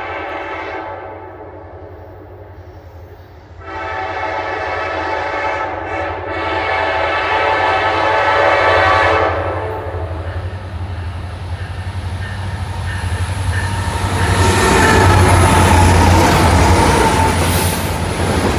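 Freight train's diesel locomotive air horn sounding: one blast ends about a second in and a long blast runs from about four to nine seconds. Then the lead locomotives' engines rumble as they draw close and pass, and the rattle of wheels on the rails swells as the freight cars roll by.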